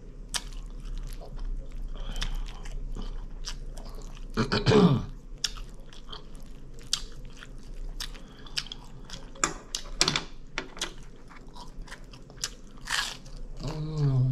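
Close-miked chewing and biting, with many short wet mouth clicks and smacks as someone eats. A brief hummed vocal sound comes about four and a half seconds in.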